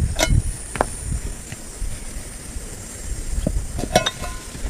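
Metal cookware clinking and clanking as a lid is handled on a pot, with a few sharp knocks and a ringing clank about four seconds in. A steady low rumble and hiss runs underneath.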